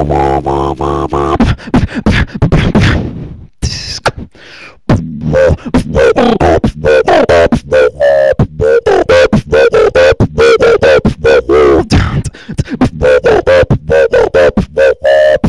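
Solo beatboxing heard over Ventrilo voice chat: fast vocal percussion of clicks and snare-like hits layered with hummed, held bass tones, with a brief break about three and a half seconds in.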